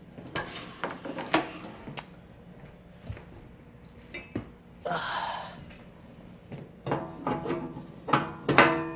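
Metal meat-grinder parts being handled: a series of knocks and clinks, some briefly ringing, with a short rustle about five seconds in.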